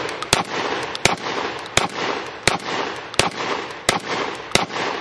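Beretta A300 Ultima Patrol gas-operated semi-automatic 12-gauge shotgun firing heavy loads in rapid succession: seven shots about two-thirds of a second apart, each followed by ringing echo that fills the gaps.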